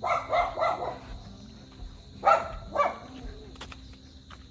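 Dogs barking: a quick run of barks at the start, then two more barks about half a second apart a little past two seconds in.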